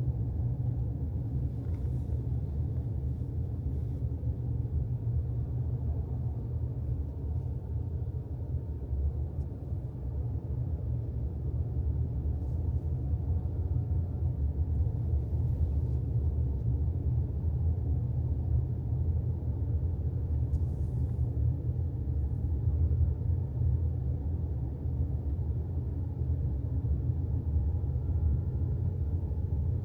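Steady low rumble of a car driving, road and engine noise with no change in pace.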